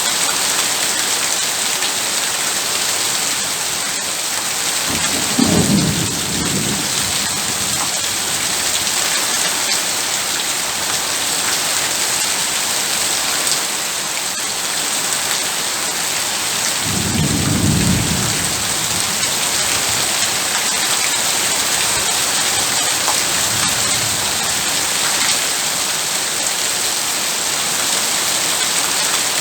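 Heavy rain falling steadily, with low rumbles of thunder about five seconds in and again about seventeen seconds in, and a fainter rumble near twenty-four seconds.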